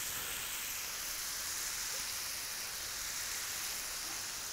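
Food frying in a hot pan on a gas hob, a steady sizzle, as sauce is poured into it.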